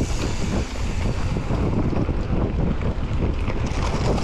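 Wind buffeting the microphone: a loud, steady, gusty rumble with no pitched tones.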